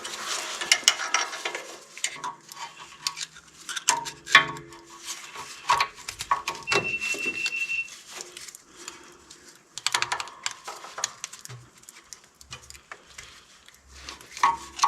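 Small metal parts and tools clinking and tapping irregularly as the hydraulic drain plug, washer and fittings are handled, with a short high squeak about seven seconds in.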